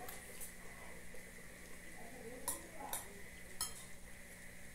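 A spoon clinking and scraping against a glass soup bowl a few times while someone eats. A faint steady hum runs behind it.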